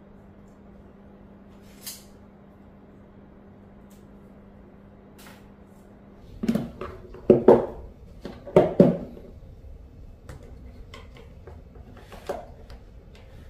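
Plastic clip-lock food container set down on a stone countertop, its latches unsnapped with a run of loud knocks and clicks, then lighter clicks as the lid is lifted open.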